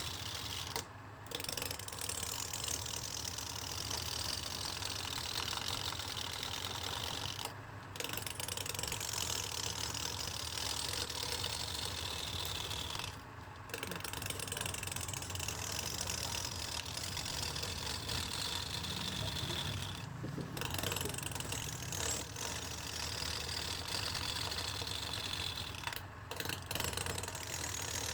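Wood lathe running with a turning tool cutting the spinning wood in repeated passes. Each pass gives a high scraping tone that falls slowly in pitch, with a short break about every six seconds, over the steady hum of the machine.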